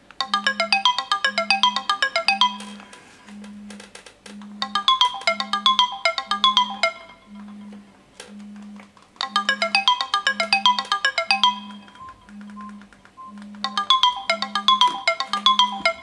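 Smartphone alarm tone ringing: bursts of quick, bright marimba-like notes, each about two and a half seconds long, repeating about every four and a half seconds. Underneath, a low buzz pulses on and off about once a second, a phone vibrating on the table.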